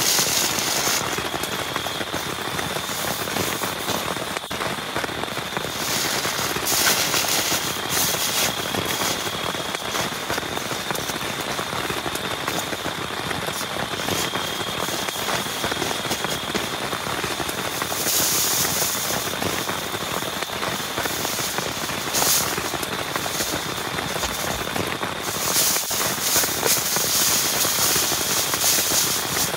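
Heavy rain falling steadily, with a dense spatter of close drop impacts on a nearby surface; the hiss grows brighter for a couple of stretches in the second half.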